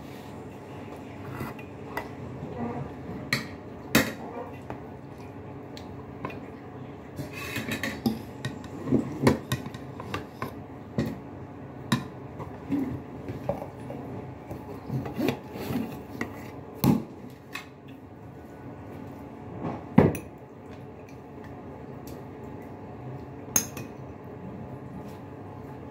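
Metal cutlery clinking and scraping against plates and a serving bowl in scattered knocks, busiest in the middle, over a steady low hum.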